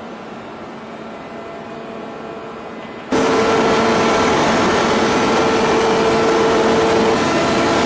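Steady hum of forging-shop machinery with a constant tone in it and no hammer blows. About three seconds in it jumps abruptly louder and stays at that level.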